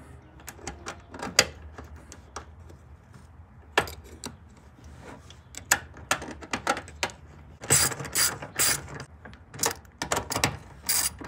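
Hand socket ratchet clicking in quick bursts while running a bolt into a riv nut, after a few seconds of small scattered metal clicks from parts being handled.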